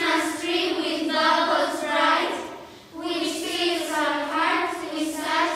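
A choir of schoolgirls singing together in unison in two phrases, with a short pause between them about two and a half seconds in.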